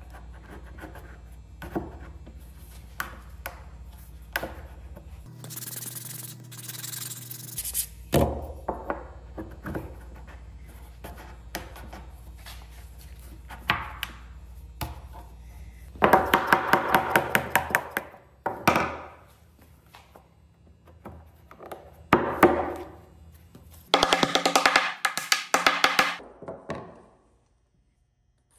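A wooden patch block being knocked and pressed into a tight pocket cut in a wooden slab: scattered knocks of wood on wood, a stretch of rubbing partway through, and several quick runs of mallet strikes in the second half as the block is driven home.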